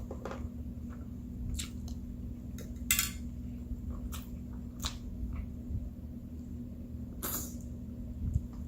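Someone eating close to the microphone: scattered clicks and scrapes of cutlery against a dish and soft wet mouth sounds, over a steady low hum.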